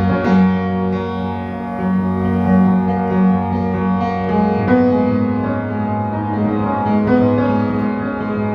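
Instrumental music of long held chords, the notes changing every couple of seconds.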